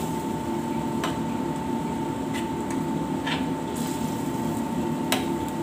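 Spatula stirring beef and sauce in a stainless steel pan, with a few light clicks of the spatula against the pan over a steady low hiss from the cooking.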